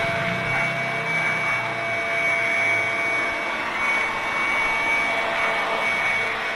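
Electric air blower running steadily: a constant rushing noise with a thin high whine from the motor.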